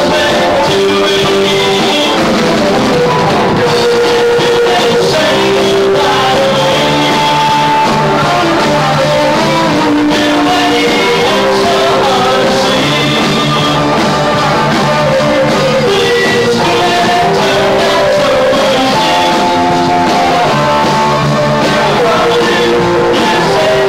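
Live rock band playing: electric guitars and drums with a lead vocalist singing into a microphone, steady and loud throughout.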